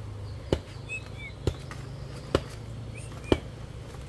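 Kitchen knife chopping food, four sharp knocks a little under a second apart, with a few faint bird chirps.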